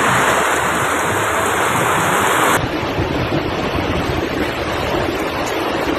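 Loud, steady rush of tornado wind and rain battering a phone microphone. The noise changes abruptly about two and a half seconds in.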